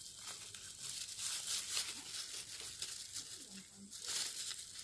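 Thin plastic bag crinkling and crackling in the hands as it is wrapped and tied around a young guava fruit on the branch.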